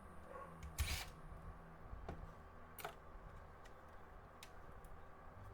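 A few light clicks and knocks from the parts of a digital converter box being handled during disassembly, the loudest about a second in, over a faint steady hum.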